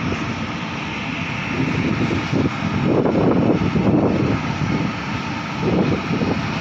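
A steady mechanical drone with gusts of wind buffeting the microphone, strongest about halfway through and again near the end.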